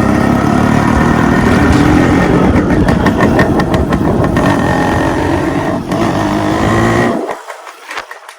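Yamaha RX135's single-cylinder two-stroke engine running through a modified exhaust while riding. About seven seconds in, the engine sound drops away abruptly.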